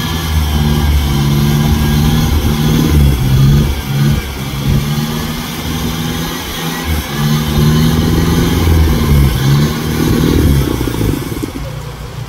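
Off-road Jeep engine revving hard in repeated surges, the throttle opened and eased off every second or two.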